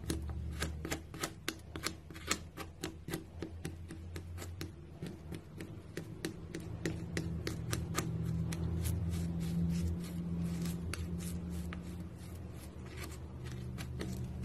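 A metal palette knife cutting, pressing and scraping through thick, stiff paint that breaks into chunks on a hard surface: many sharp clicks and crackles, densest in the first few seconds and thinning out later.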